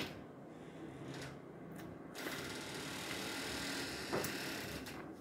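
Close-miked chewing of a mouthful of instant noodles, with wet clicking mouth sounds, a longer hissing stretch in the middle and a sharp click a little after four seconds.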